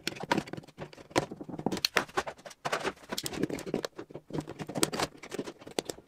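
A snap-off utility knife blade cutting a circular hole through a plastic food container lid, giving a run of irregular scratchy scrapes and clicks as the blade saws and snaps through the plastic.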